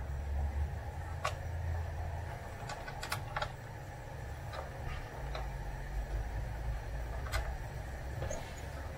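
Screwdriver turning screws out of a metal battery cover: scattered light clicks and small metal scrapes a second or two apart, over a low steady hum.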